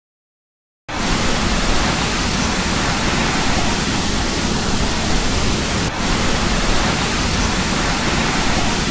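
Typhoon wind and torrential rain: a dense, steady rush of noise with heavy wind rumble on the microphone, starting abruptly about a second in, with a brief dip about six seconds in.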